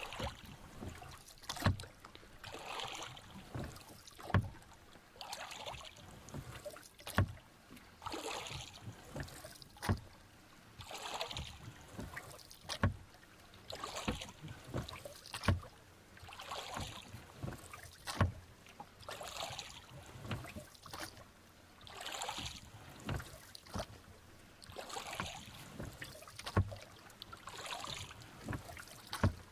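Rowboat being rowed on a lake in a steady rhythm, one stroke about every two and a half to three seconds. Each stroke brings a sharp knock of the oars followed by a splashing swish of the blades pulling through the water.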